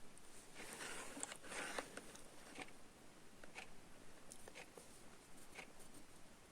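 Faint handling noise: soft rustles and a few light clicks, densest in the first two seconds.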